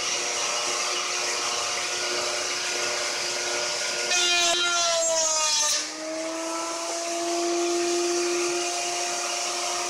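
Table-mounted router with a dovetail bit running steadily at a high whine. A little past four seconds its pitch sags for about two seconds as the bit cuts a groove in a fir block, then climbs back to full speed.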